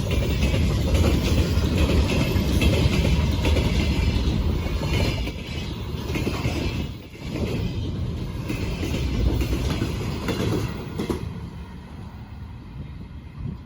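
Freight train wagons rolling past on the track, their wheels clacking over rail joints. The sound drops away about eleven seconds in.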